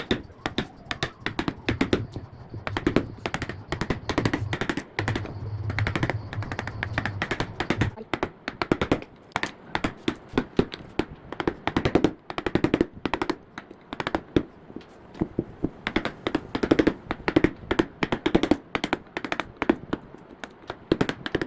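Hand tool striking wood over and over, several sharp blows a second, as the wood is shaped by hand.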